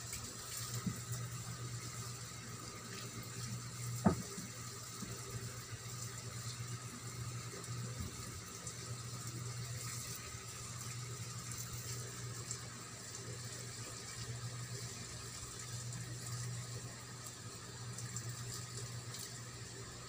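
Steady low hum and hiss of room background noise, with a single sharp click about four seconds in.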